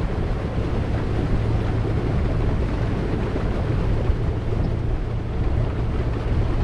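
Boat's motor running steadily with a constant low hum while under way, mixed with the rush of water and wind on the microphone.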